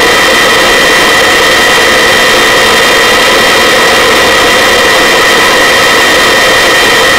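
Search-and-rescue helicopter's turbine engine and rotor running steadily, heard from inside the cabin, with a steady high turbine whine over a loud wash of engine and air noise.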